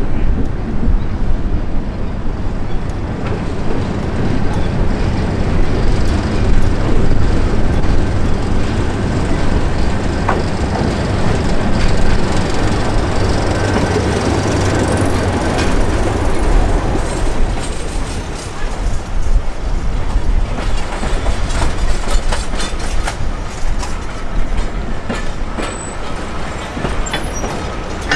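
Heritage diesel train running, with a steady low engine drone through the first half. In the second half, rapid sharp clicks of the wheels over the rails come in.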